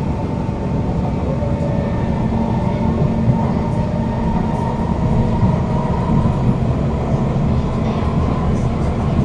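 Kawasaki Heavy Industries C151 metro train (GTO-VVVF variant) running at speed, heard from inside the car: a steady rumble from the wheels and running gear, with a steady high tone from the traction motors on top of it.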